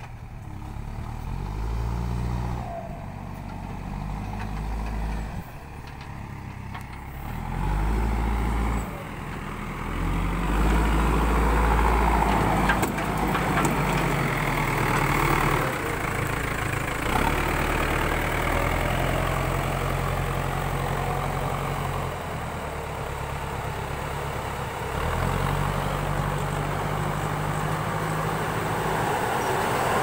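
JCB backhoe loader's diesel engine running close by, its revs stepping up and down repeatedly as the machine works.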